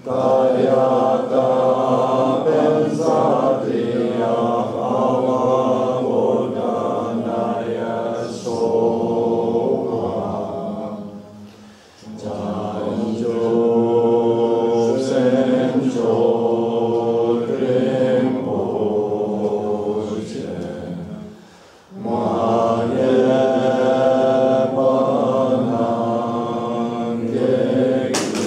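Tibetan Buddhist prayer chant, sung in three long phrases with brief breaks for breath about 12 and 22 seconds in.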